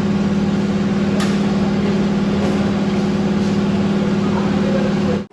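A machine running steadily, a constant mechanical hum that does not change in pitch, cut off abruptly near the end.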